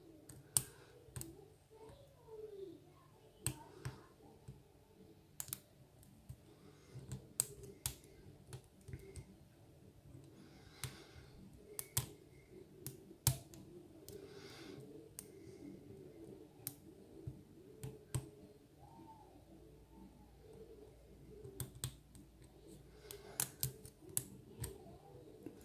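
Metal lock pick working the pins of a pin-tumbler lock: irregular small clicks and taps as the hook lifts pins in the keyway under tension.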